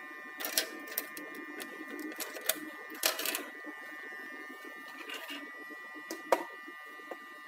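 Irregular plastic clicks and knocks from hands handling a Seiko TP-50 time clock and its cover, over a steady faint high whine; one sharp knock stands out near the end.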